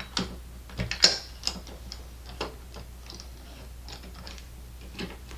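Metal tablet clamp mount being handled and fitted: a series of irregular sharp clicks and knocks, the loudest about a second in.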